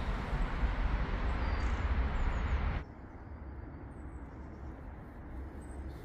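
Outdoor background noise, a steady low rumble with hiss, which cuts off abruptly about halfway through and leaves a much quieter ambience with a few faint, high chirps.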